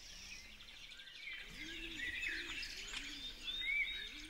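A chorus of small birds chirping and twittering.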